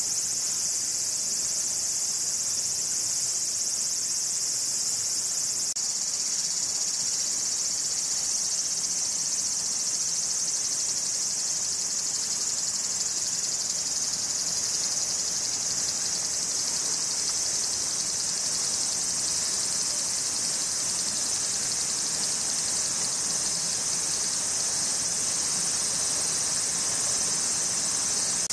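A dense chorus of insects calling without a break, steady and high-pitched.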